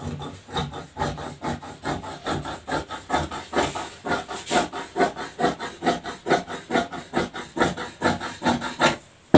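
Fabric scissors snipping through cloth in a steady run of cuts, about three a second.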